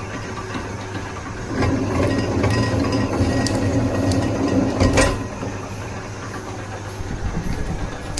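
Wire stripping machine running with a steady motor hum while it strips a cable's inner layer. The hum is louder for a few seconds in the middle, with scattered clicks and a sharp knock about five seconds in.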